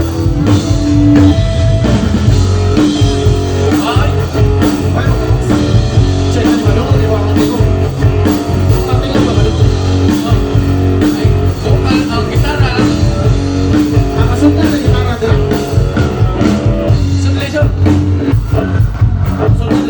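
Rock music with electric guitar and drum kit and some singing, played loud.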